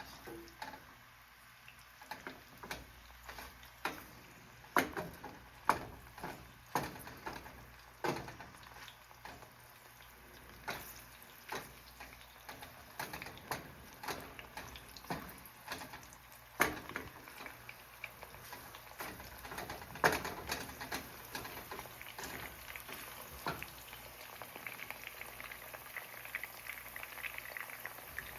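Mushrooms frying in olive oil in a pan, with irregular sharp pops and taps about once a second over a faint sizzle. The sizzle grows louder and denser in the last few seconds.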